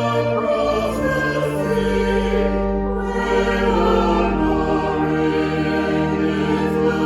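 Choral music: voices singing in sustained chords over held low bass notes, with slow changes of chord.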